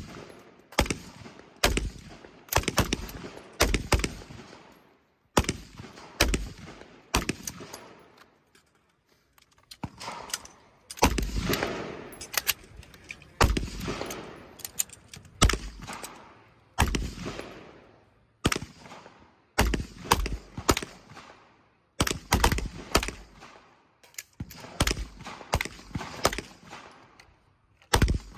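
Firearm shots fired steadily and irregularly, roughly one to two a second with some quick doubles and triplets, each crack trailing off in an echo across the range.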